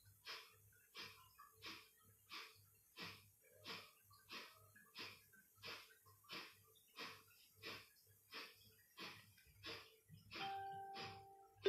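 Kapalbhati breathing: short, forceful exhalations through the nose, each a faint puff of air, about one and a half a second in a steady rhythm. Near the end a chime with a steady tone starts.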